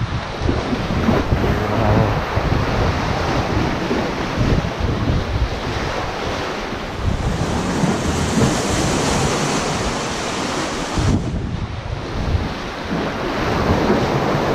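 Small sea waves washing in and splashing against shoreline rocks, with wind buffeting the microphone in a low rumble. The wash eases briefly about eleven seconds in.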